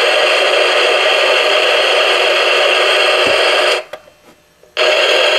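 Clock radio's speaker putting out loud, steady static hiss under the electromagnetic interference of a Tesla lamp, cutting out for about a second near the end.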